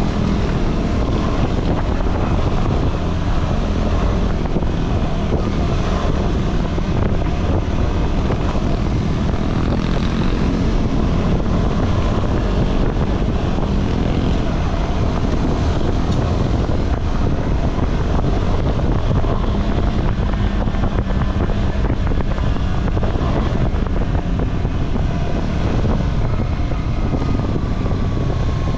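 Single-cylinder engine of a KTM 390 Adventure motorcycle running steadily under way on an off-road trail, with wind noise on the microphone.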